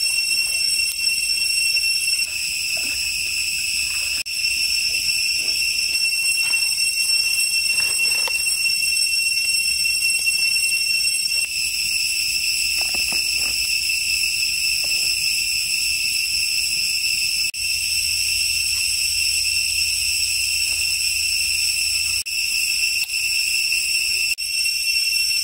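A steady, high-pitched insect chorus droning without a break, with faint scattered clicks and knocks beneath it.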